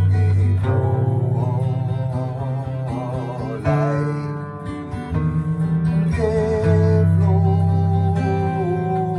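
Acoustic guitar strummed in steady chords, with a wordless, wavering sung melody held over it.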